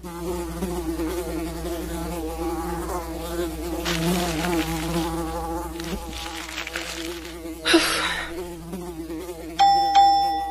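A fly buzzing steadily with a wavering pitch. A short rushing whoosh comes about three seconds before the end, and two bright chime-like dings sound near the end.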